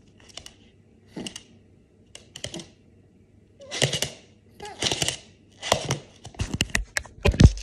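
Short scratchy noises from a small fluffy dog moving on a hard floor close to the phone, nine or so separate scrapes and taps that grow louder in the second half as it comes right up to the phone.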